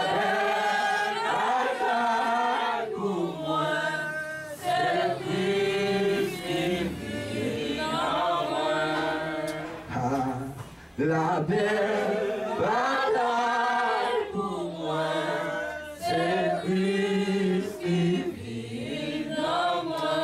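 A group of voices singing together in phrases, with short breaks between lines.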